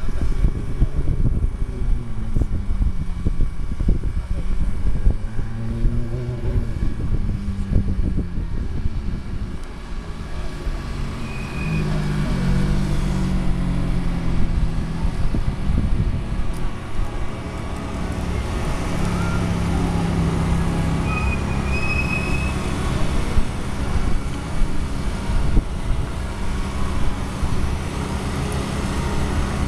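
Ferrari F430's V8 engine revving up and down as the car is driven hard through an autocross course, its pitch rising and falling with each burst of throttle and lift. From about halfway on, the engine note is steadier and more even.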